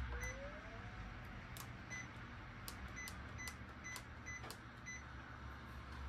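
Panasonic IH cooktop control panel beeping as its buttons are pressed to set medium heat and a five-minute cooking time: about seven short, high beeps spread over some five seconds.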